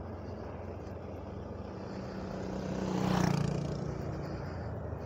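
Yamaha Aerox V2 scooter's single-cylinder 155 cc engine running steadily on the move, with a swell of rushing noise that peaks about three seconds in and eases off, the engine note dropping a little after it.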